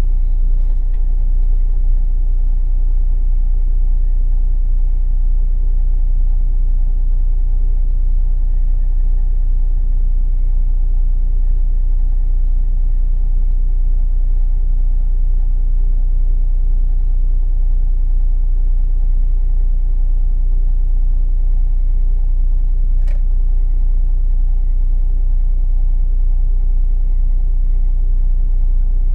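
Temsa Safir Plus coach's diesel engine idling steadily, a deep low rumble heard from inside the cabin. A single faint click sounds late on.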